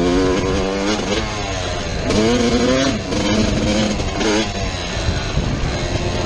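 Motorcycle engine revving, its pitch rising and falling several times as the throttle is worked.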